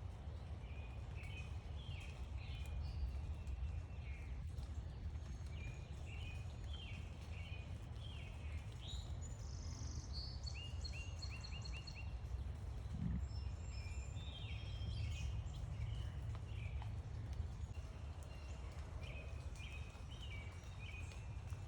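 Several small backyard birds chirping and calling in quick runs of short, high notes, over a steady low rumble.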